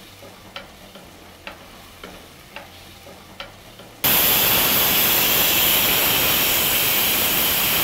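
A spatula stirring and tapping in a pot of onion and tomato frying in coconut oil, with light strokes about two a second. About four seconds in, a pressure cooker's whistle weight lifts and lets off steam in a sudden, loud, steady hiss, the sign that the cooker has come up to pressure.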